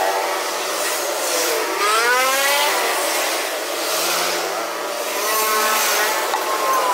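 An engine revving, its pitch gliding up and down several times over a steady hiss.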